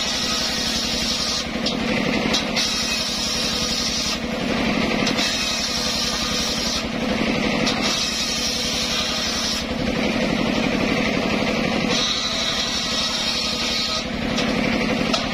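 Homemade engine-driven table circular saw ripping mahogany boards. The cutting noise of the blade rises and drops back about five times, a couple of seconds per pass, over the steady drone of the engine.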